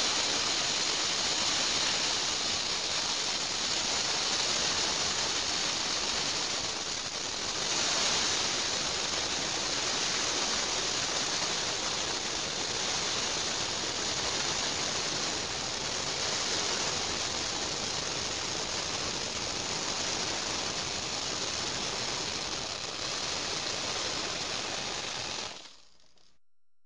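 About 10,000 metal BBs pouring down and piling onto a hard surface in one long, dense, steady rattling stream. It stops suddenly near the end.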